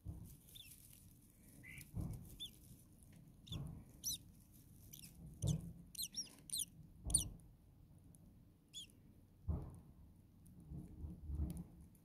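Starling nestlings begging: thin, high, short falling chirps in scattered groups, busiest in the middle as the chicks gape. Soft low thumps and rustles of the chicks moving in the nest lie underneath.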